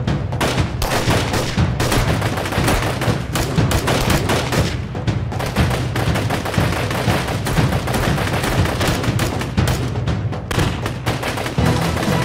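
Sustained automatic gunfire from several rifles in a firefight, rapid shots and bursts overlapping with no break, as in a television action sound mix.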